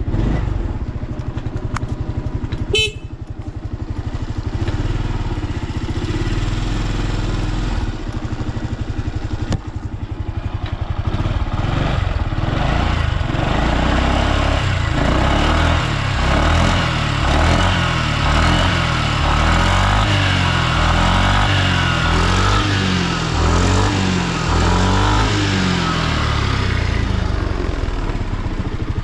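Honda PS250 scooter's engine idling, with a brief sharp noise about three seconds in. From about halfway it is revved again and again, its pitch rising and falling with each throttle blip. The seller calls it running with no abnormal noise.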